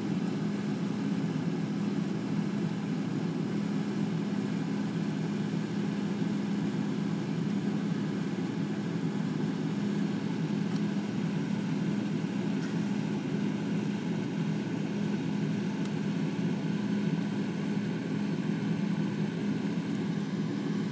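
Steady low mechanical hum with an even level throughout.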